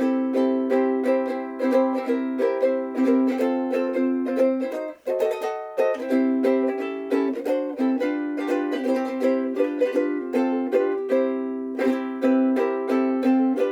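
Famous FS-5G soprano ukulele, with a Hawaiian koa laminate body and fluorocarbon strings, being played: a melody of plucked notes over chords at a steady pace, with a brief break about five seconds in and a few strummed chords near the end.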